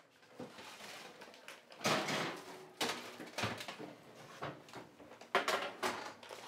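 Kitchen handling noise: an oven door being opened and several sharp clunks and knocks, the loudest about two seconds in and again near the end, over faint murmuring voices in a small room.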